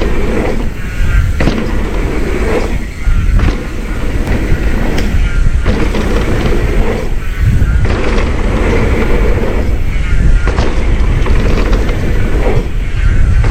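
Mountain bike riding fast down a dirt jump trail: loud wind buffeting on the microphone over the rumble and rattle of tyres and bike across the ground.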